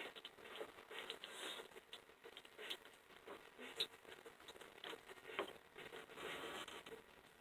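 Faint clicking and rustling of door-handle hardware being handled and fitted, with one sharper click about four seconds in.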